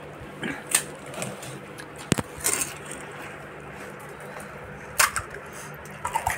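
Scattered light clicks, taps and crunches from crisp golgappa puris and steel bowls and plates being handled while eating, over a faint steady hum.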